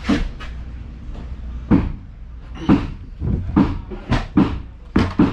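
Irregular wooden knocks and bumps, about ten in five seconds, from a round wooden tabletop being handled and shifted on its pedestal.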